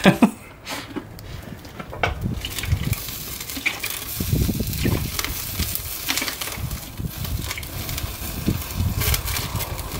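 Water poured onto a freshly welded differential housing with burning gear grease inside, sizzling and hissing on the hot metal and flames as it douses the fire. The hiss builds from about two seconds in and carries on steadily, over a low rumble.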